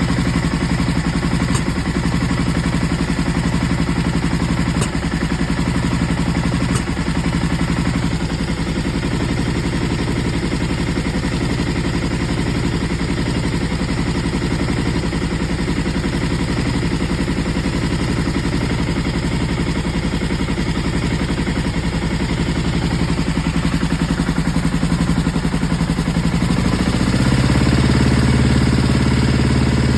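Aprilia ETV1000 Caponord's V-twin engine idling with a misfire, then revving up near the end. The misfire comes from the front cylinder's cam sitting one tooth off timing.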